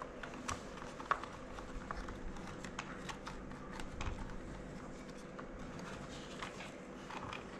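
Scattered light clicks, taps and rattles of hands handling a small RC toy car while fitting an Eachine TX06 FPV camera and its strap onto it, with a sharper click about a second in and a dull knock about four seconds in.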